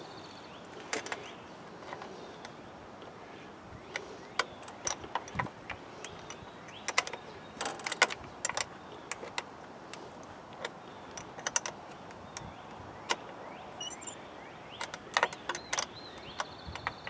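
Irregular small clicks and metallic clinks of a wire's ring terminal and nut being fitted by hand onto a battery's positive post under a plastic terminal cover.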